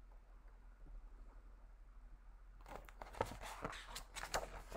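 Faint room tone, then from a little past halfway a run of soft rustles and taps from a hardcover picture book's paper pages being handled.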